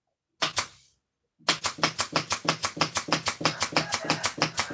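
Rapid knocking on a wooden subwoofer box panel: two knocks, then after a short pause a steady run of about seven or eight hollow knocks a second.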